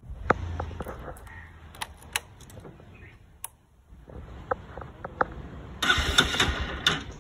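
Bajaj Pulsar AS200's electric starter cranking its single-cylinder engine, which has freshly fitted spark plugs. The cranking comes in a loud, fast-pulsing burst starting about six seconds in. Before it there are only a few clicks and handling knocks.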